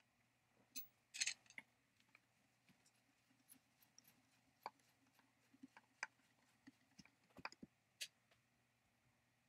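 Faint, scattered clicks and light taps of metal parts and a small hand tool being handled while a power cord is fed through an aluminium chainsaw handle, with a short cluster of clicks about a second in.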